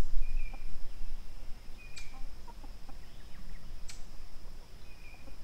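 Backyard chickens clucking softly, with a few short high chirps and two sharp ticks. A steady high insect whine runs behind them.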